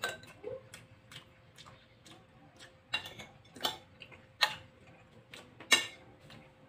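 Eating sounds: chewing with smacking mouth clicks, and a metal fork clicking against a glass baking dish, making a string of irregular sharp clicks, the loudest from about three to six seconds in.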